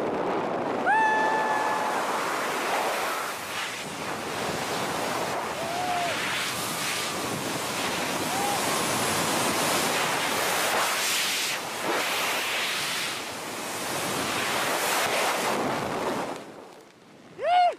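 Freefall wind rushing loudly over a helmet-mounted camera's microphone, with a few short yells. The rush dies away suddenly near the end as the parachute opens, followed by one loud yell.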